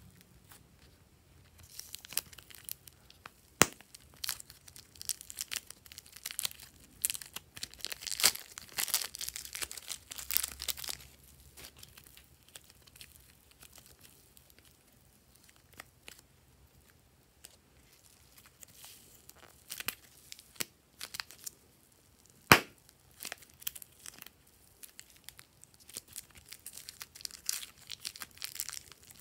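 Hands squeezing and working slime and its mix-ins, making dense bursts of crackling and crinkling, as when foam-bead slime is pressed. A quieter middle stretch, as soft slime is stretched, holds scattered clicks and one loud sharp click. Plastic packaging crinkles near the end.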